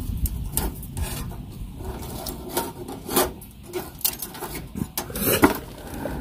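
Metal tongs scraping and knocking inside a small folding steel wood stove, stirring damp pine cones that are slow to catch. Irregular scrapes and clicks, the loudest a little after five seconds in.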